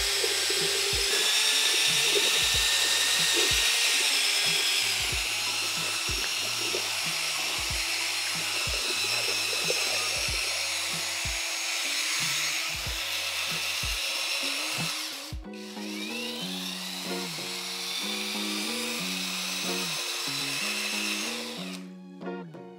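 Background music with a steady beat, over the cordless paddle mixer's motor running with a steady high whine. The motor sound cuts off shortly before the end, leaving only the music.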